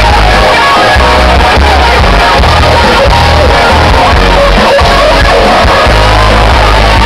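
Loud live pop-rock music through outdoor stage PA speakers: a pulsing heavy bass under a sung melody.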